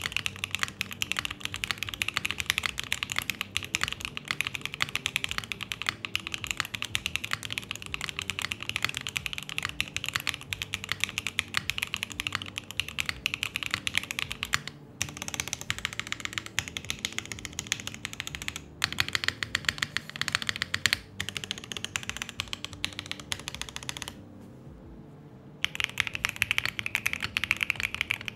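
Fast, continuous typing on a mechanical keyboard with Gateron Smoothie linear switches (full POM housings and stem) in a gasket-mounted MKC75 with a POM plate. The keystrokes give a soft clack that leans dry rather than creamy. The typing pauses briefly about halfway and again for a second or so near the end.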